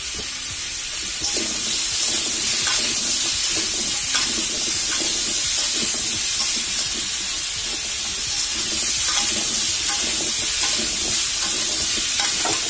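Pumpkin cubes sizzling as they are sautéed in hot oil in a metal karahi. From about a second in, a spatula stirs them and scrapes and knocks against the pan.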